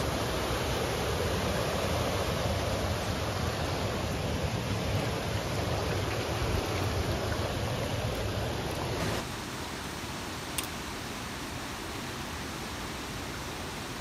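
Steady rush of a mountain river's flowing water. About nine seconds in it drops suddenly to a quieter, similar rush, with one faint click a little later.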